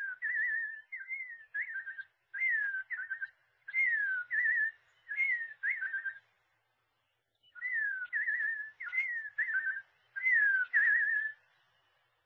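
Clear whistling in short repeated phrases, each a falling note followed by a quick warble, with a pause of about a second around six seconds in.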